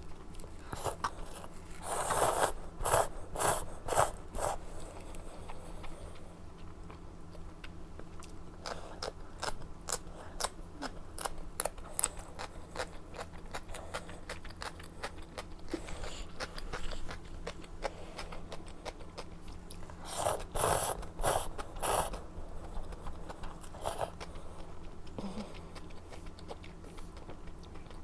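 Close-miked eating: steady chewing with small wet clicks and smacks, and two runs of louder bites and smacks, one a couple of seconds in and another about twenty seconds in.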